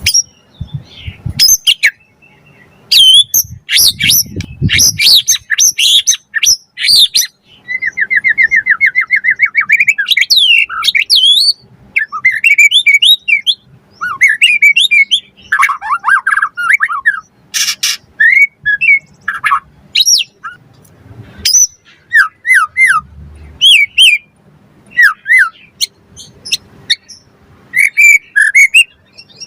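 White-rumped shama singing a loud, varied song of clear whistles, rising and falling sweeps, rapid trills and harsh chattering notes, phrase after phrase with short pauses, a song full of mimicked phrases.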